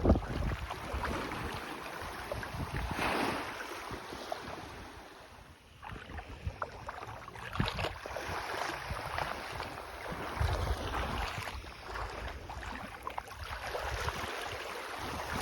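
Small sea waves washing in and out on a beach in swells every few seconds, with a fizzing crackle as the water runs over the shore. Wind gusts buffet the microphone with a low rumble.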